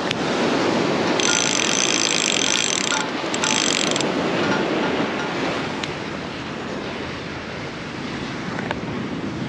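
Ocean surf washing on the shore, with wind buffeting the microphone. From about a second in to about four seconds in, a high hissing noise rides over it, broken once.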